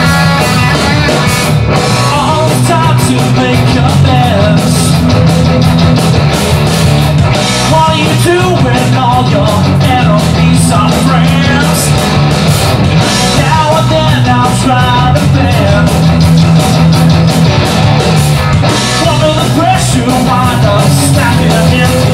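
Live rock band playing loud: electric guitars, bass guitar and a drum kit driving steadily, with a male singer's lead vocal over them.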